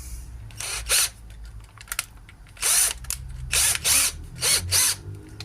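Power drill spinning in several short bursts with a well-used diamond ball burr in the chuck.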